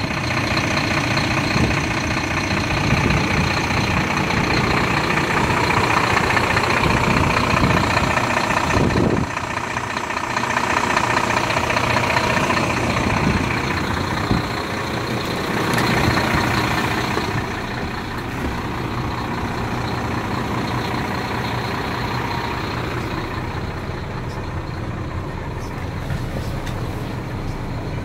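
Volvo FM 330 truck's six-cylinder diesel engine idling steadily.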